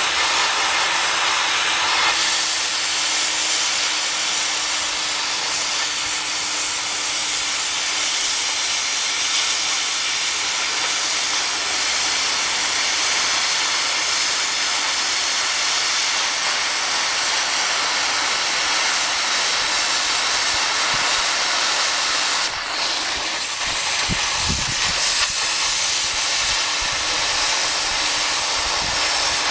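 Oxy-fuel cutting torch hissing steadily as its cutting jet burns through the thick steel of an excavator bucket ear, throwing sparks. The hiss drops off briefly about three-quarters of the way through, with a few low thuds just after.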